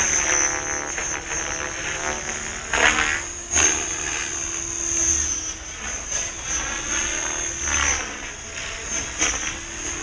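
Radio-controlled helicopter flying at a distance. Its rotor and motor sound swells and fades in sweeping whooshes several times as it manoeuvres.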